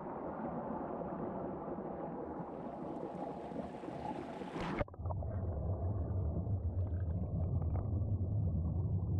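River water churning with air bubbles in a small whitewater pool, heard from under the surface. A little under five seconds in, the hiss on top cuts off suddenly, leaving a duller, deeper rumble.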